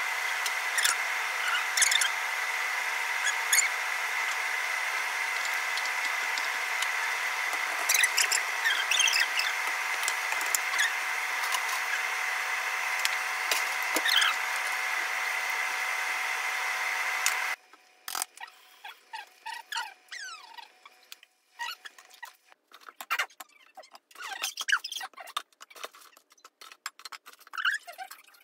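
Steady background hiss with a faint high whine, and light clicks of a spoon, bowl and plates. The hiss cuts off abruptly about two thirds of the way through, leaving soft scattered clicks and a few small squeaks.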